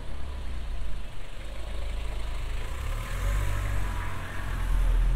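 A motor vehicle's engine running close by with a steady low rumble, growing louder about three seconds in.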